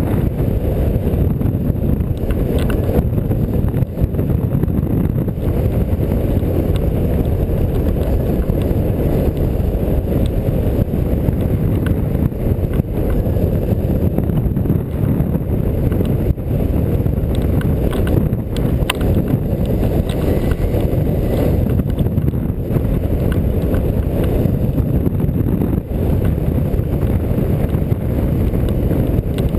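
Steady, loud wind noise from the airflow of a hang glider in flight buffeting the camera's microphone, with a few faint clicks here and there.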